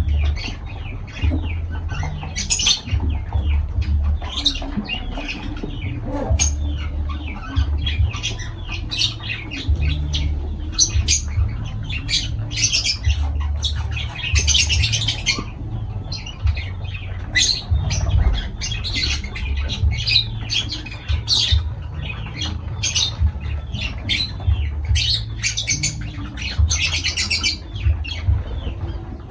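Lovebirds squawking and chattering, a rapid run of short, shrill calls, with a low rumble coming and going underneath.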